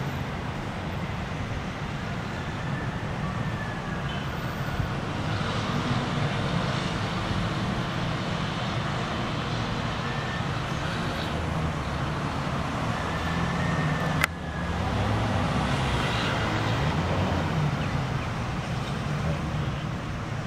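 Steady road-traffic noise, a continuous low rumble of passing vehicles, with a single sharp click about fourteen seconds in.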